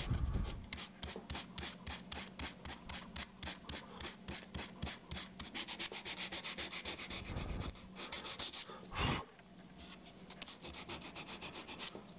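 Sandpaper rubbed back and forth by hand over a stained chip-carved wooden board in quick strokes, about four or five a second, lightly sanding the tops of the carving to lighten the stain. One louder stroke comes about three-quarters of the way through, and the strokes are fainter after it.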